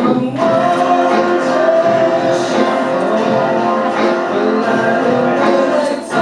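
Music: a song with singing, long held vocal notes over instrumental backing, with a brief dip near the end.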